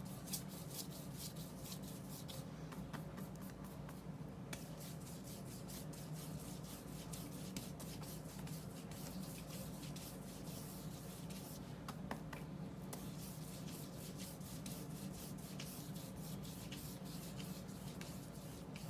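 Bristle brush rubbing oil paint onto paper: a continuous dry scratching made of many short strokes, over a steady low hum.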